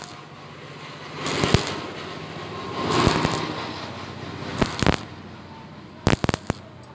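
Stick-welding arc crackling and hissing on a thin steel square tube, swelling and easing as the bead is laid in short separate puddles. Several sharp pops break through, the loudest about a second and a half in and more near the end.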